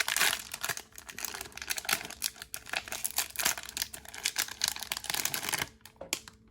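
Crinkling and tearing of the wrapper of a 2019 Topps Series 1 baseball card fat pack as it is opened by hand, a dense crackle that stops suddenly near the end.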